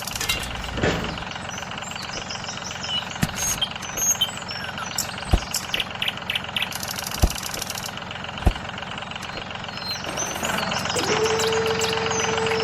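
A motor running steadily, with three sharp knocks in the middle. About eleven seconds in, a steady whine comes in.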